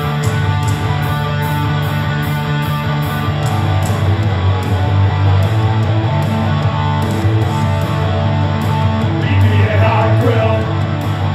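Rock band playing live, with a loud electric guitar and a heavy low end; a voice comes in singing near the end.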